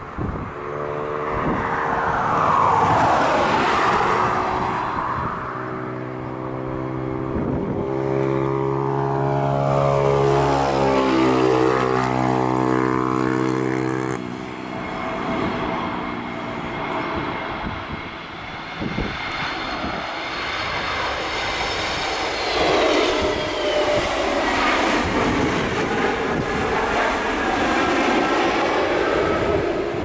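Airliner engines passing low on landing approach: a deep, steady droning hum with tones that sweep up and down as the plane goes by. About halfway through it cuts off abruptly, and another aircraft follows with a steady high whine and a falling tone.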